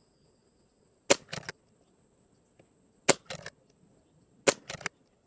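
Brocock (BRK) Sniper XR Sahara .22 PCP air rifle firing three shots about one and a half to two seconds apart. Each shot is a sharp crack followed closely by two or three fainter clicks.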